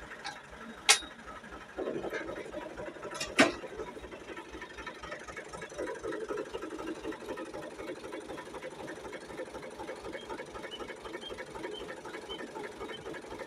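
Tractor diesel engine idling steadily, with two sharp knocks about one second and three and a half seconds in.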